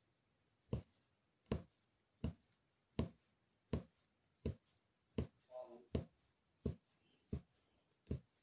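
Punch needle repeatedly piercing taut fabric on an embroidery frame, a soft pop at each stitch in a steady rhythm of about one stroke every three-quarters of a second.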